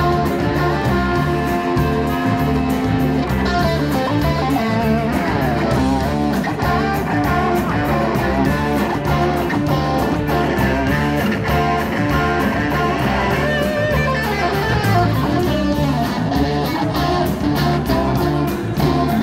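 Live rock band playing an instrumental passage: two electric guitars over bass and drums, with the lead guitar's notes wavering in pitch.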